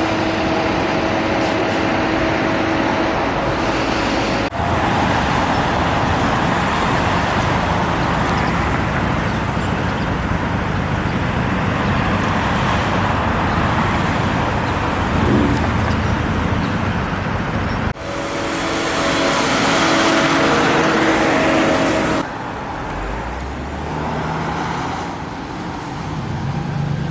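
Steady road-vehicle noise: car and traffic rumble with tyre hiss. It changes abruptly several times as the clips cut, with a steady engine hum in some segments.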